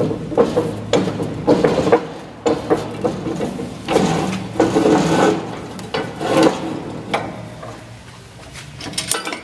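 Guide fence of a ЦДК5-3 multi-rip saw being shifted by hand along its table: repeated bouts of scraping and rubbing with small knocks, and a few sharp clicks near the end.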